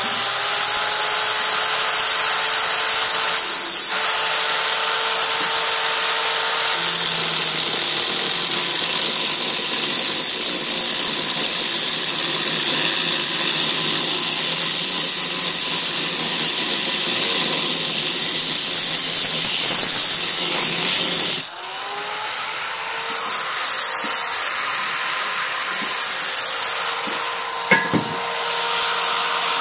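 Handheld angle grinder spinning up and grinding into square steel tubing, a steady high whine with a hard grinding hiss. About 21 seconds in the disc comes off the steel and its whine rises in pitch, then it grinds lighter and unevenly, with a sharp click near the end.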